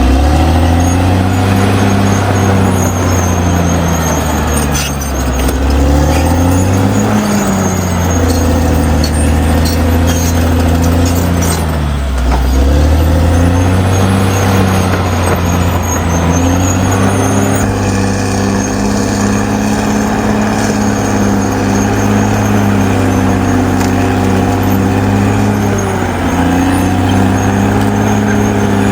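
Caterpillar D6R XL bulldozer's diesel engine running hard, its pitch sagging and recovering a few times as the load comes on and eases off, with a few knocks along the way.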